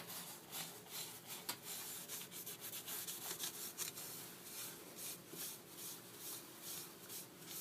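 A rag rubbing dark wood stain onto a small wooden wand on a lathe: faint, irregular scuffing over a low steady hum.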